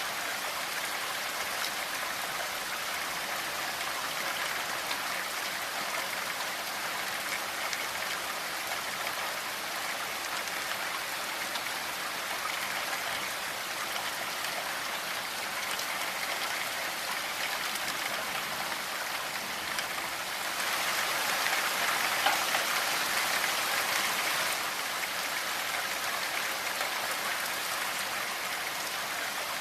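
Steady rainfall, a dense hiss of falling drops, that grows heavier for a few seconds about two-thirds of the way through.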